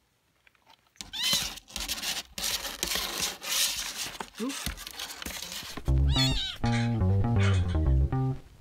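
Young kittens meowing, one high cry about a second in and another about six seconds in, over rustling and handling noise in their box. From about six seconds in, background music plays under the meowing.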